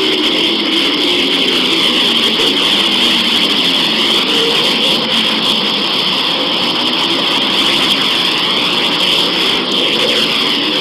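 Steady, dense whooshing drone with faint swirling sweeps in it: a 'sound of a planet' space sonification, spacecraft radio data turned into audio.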